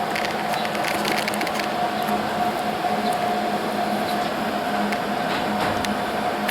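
Steady fan hum with a held tone, with scattered clicks and knocks of a camera being handled and moved, most of them in the first second or so.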